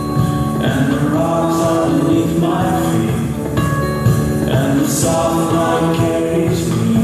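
Music playing at a steady level, with a voice singing over it.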